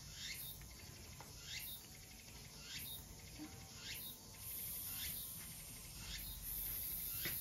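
A bird repeats a short, high call that slides downward, about once every second and a bit. Behind it runs a steady high-pitched hiss that swells twice in the second half.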